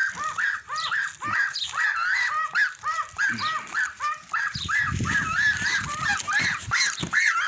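Domestic geese honking in short, overlapping calls, several each second. A brief low rustle about five seconds in.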